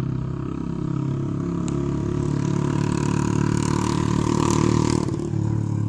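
An engine running close by, with a steady low hum that grows louder toward the middle and drops away sharply about five seconds in.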